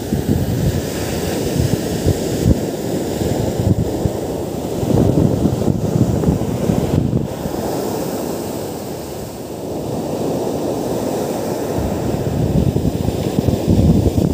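Ocean surf breaking and washing up a sandy beach, swelling and easing in slow surges, with wind buffeting the microphone.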